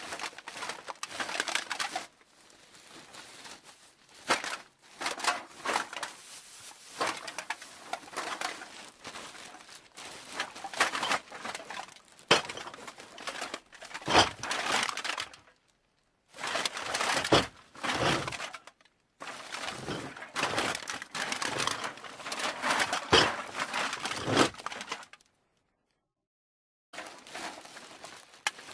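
Aluminium cans clattering and knocking together in rapid runs of sharp metallic clicks and rattles. The runs come as a series of separate takes, with two brief dead-silent gaps between them.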